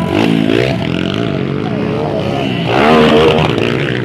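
Dirt bike engine revving as it passes, its pitch dipping and climbing just after the start, with a louder rev near the end.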